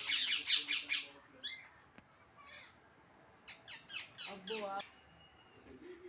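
Parakeet squawking in fast runs of harsh repeated calls, about seven or eight a second: one run in the first second and another a little past halfway.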